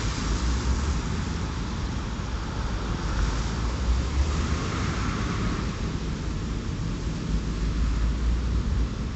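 Steady road traffic noise with wind buffeting the microphone in uneven low rumbles.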